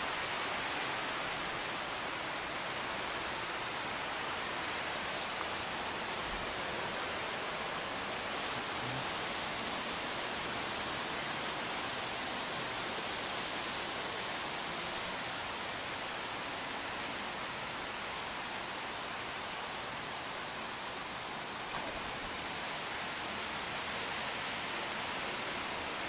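High wind blowing through the trees, the leaves rustling in a steady, unbroken hiss.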